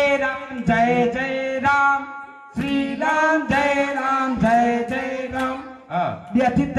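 A man singing unaccompanied in a Gujarati sing-song, in drawn-out phrases with held, wavering notes and brief breaks between them.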